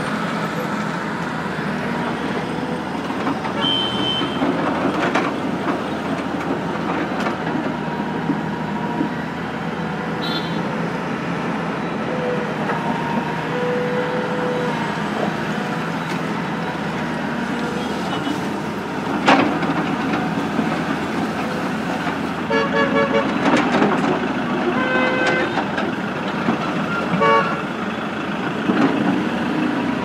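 Tata Hitachi hydraulic excavator running steadily as it digs and lifts soil, amid street traffic noise, with several short vehicle horn toots near the end.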